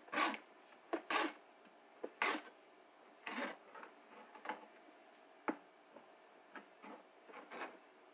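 Long kitchen knife slicing kielbasa into pieces, the blade knocking on the cutting board with each cut: about a dozen irregular taps.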